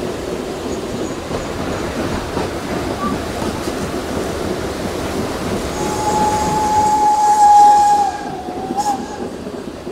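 Furka Steam Railway train running, with the steady rumble and clatter of the carriages heard from on board. About six seconds in, the steam locomotive's whistle sounds one long steady note for about three seconds, wavering and dipping in pitch as it ends.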